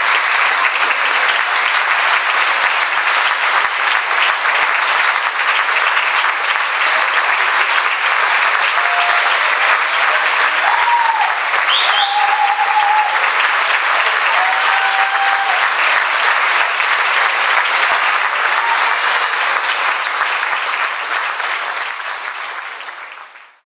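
Audience applauding steadily, with a few cheers and a short whistle about halfway through; the applause fades out near the end.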